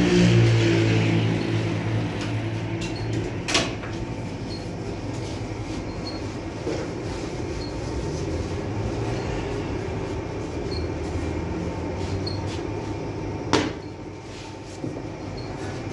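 Steady low machine hum, loudest in the first second or so, with a sharp knock about three and a half seconds in and a louder one near the end.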